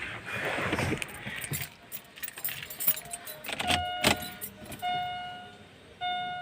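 Car keys jangling and clicking at the ignition of a Chevrolet Optra, followed by the car's warning chime ringing three times from about four seconds in, each tone fading away.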